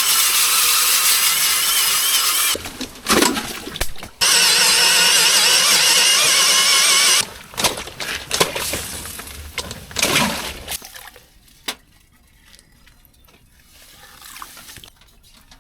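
Power tool boring a hole through thick lake ice, run in two long stretches with a short break between, followed by a few quieter knocks and clatter of ice.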